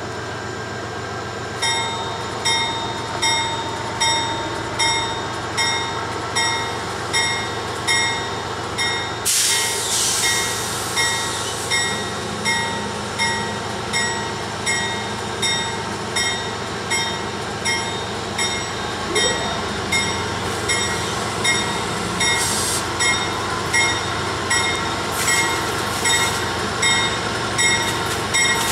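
An Amtrak P42DC diesel locomotive's bell rings steadily, a little more than once a second, as the train runs slowly in over the diesel engine's hum. About nine seconds in there is a burst of air hiss.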